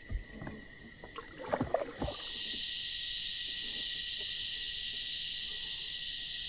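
A few knocks and clatter on the kayak in the first two seconds. Then a steady high hiss sets in suddenly and holds.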